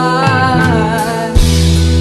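Live band music: a held melody line, slowly bending in pitch, over a steady low bass, with a drum hit about one and a half seconds in.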